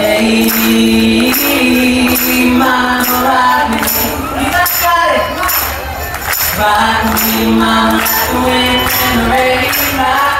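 Performers and audience singing a song together without amplified guitar, over a tambourine struck on a steady beat and hand claps.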